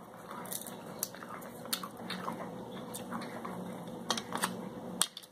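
A person chewing and biting food close to the microphone, with a sharp click or crunch about every second.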